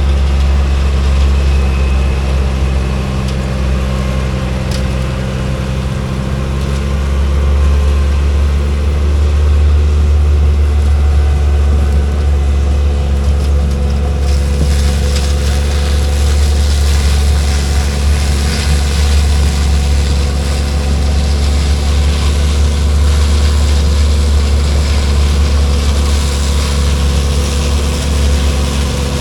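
Combine harvester's diesel engine running steadily with a deep, even hum; about halfway through a higher hiss joins the drone.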